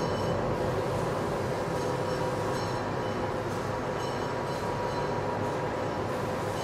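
Steady hum of machinery in a large factory hall, with short high tones coming and going every second or so.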